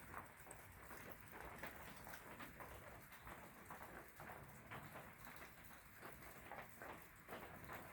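Near silence: a Hunter Original ceiling fan running quietly, with faint irregular ticks over a soft hiss.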